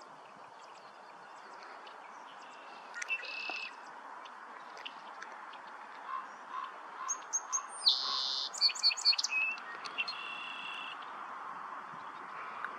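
Small songbirds chirping and singing, with scattered high calls and a busy cluster of loud trilled notes about 7 to 9 seconds in, over a steady background hiss.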